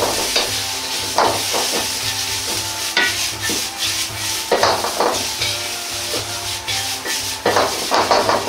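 Bean sprouts, chikuwa and vegetables sizzling in oil in a Chinese wok as they are stir-fried, with a metal ladle scraping and tossing them against the wok several times.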